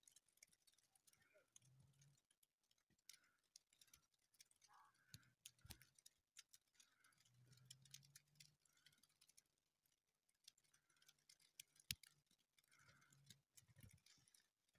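Near silence, with faint scattered ticks and crackles and a faint low hum that comes and goes.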